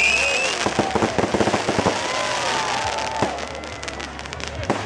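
Fireworks display: a rapid run of bangs and crackling from bursting shells, thinning out over the last second or two.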